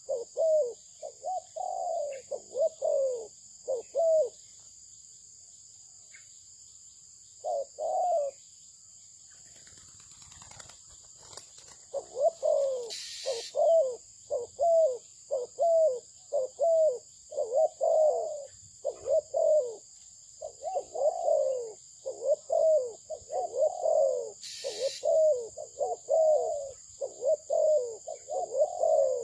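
Zebra dove (terkukur) cooing: fast runs of short notes that each dip in pitch. A burst of coos comes first, then a pause of several seconds broken by a couple of notes, then a long unbroken run of cooing through the second half.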